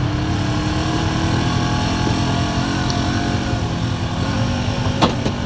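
Honda side-by-side UTV engine idling steadily, its pitch wavering slightly, with one sharp click near the end.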